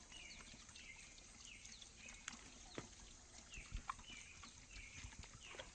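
Faint crunching clicks of a cow chewing an apple, with short high chirps repeating about twice a second.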